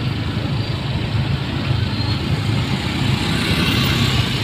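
Motor scooter engines running at low speed in slow, crowded traffic: a steady low hum.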